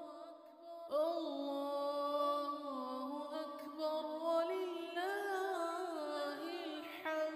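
Background music: a slow melody of long notes that glide up and down in pitch, with a fresh phrase starting about a second in.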